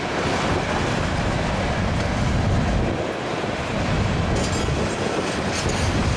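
A CN freight train's cars rolling past, steel wheels on the rails making a steady rumble.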